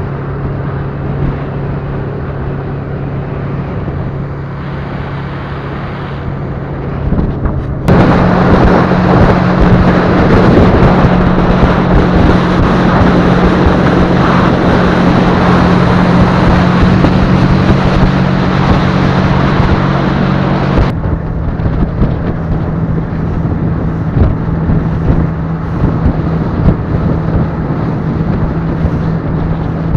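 Boat engine running steadily under way, with wind and water noise. A sudden, much louder rushing noise starts a little over a quarter of the way in and stops about two-thirds of the way through.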